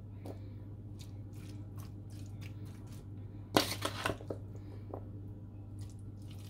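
Metal spoon scooping and scraping moist, yogurt-dressed chickpea and potato chaat out of a metal pan, with soft wet squishes and scattered clicks over a steady low hum. A louder cluster of scrapes comes about three and a half seconds in.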